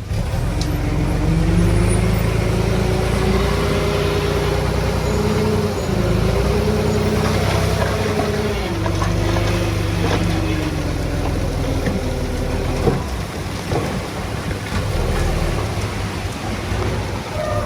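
Heavy diesel engine of earth-moving equipment running hard under load. Its pitch rises and falls as the load changes, and there is a single knock about thirteen seconds in.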